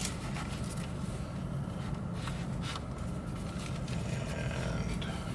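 Faint scrapes and rustles of a phone being slipped into a fabric Faraday bag and the bag being folded shut, over a steady low rumble inside a car.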